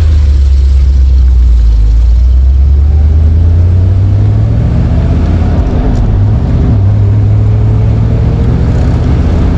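1971 Corvette's V8 engine under way with a deep exhaust rumble, rising in pitch as the car accelerates, changing about two-thirds of the way through and rising again near the end as it pulls through the gears.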